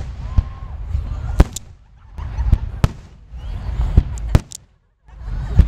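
Aerial fireworks shells bursting: about eight sharp bangs at irregular intervals, some in quick pairs, over a low rumble. The loudest bang comes near the end, right after a moment of near silence.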